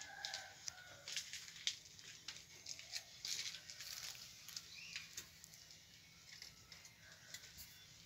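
Faint chickens clucking, with scattered sharp clicks and rustling that are busiest in the first half.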